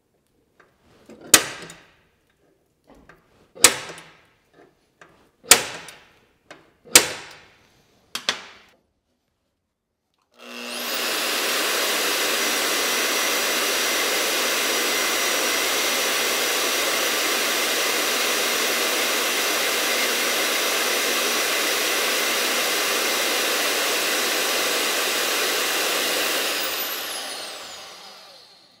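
Five sharp snaps, a spring-loaded automatic center punch marking a steel bar. Then a vertical metal-cutting bandsaw starts and runs steadily as it cuts through the flat steel bar, winding down near the end.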